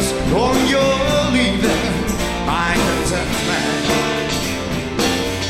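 Live rock band playing, with melody lines that slide up in pitch over a steady bass.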